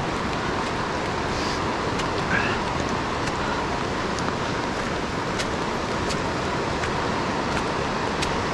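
Youghiogheny River rapids rushing steadily, with a few light clicks of footsteps on the rocky trail.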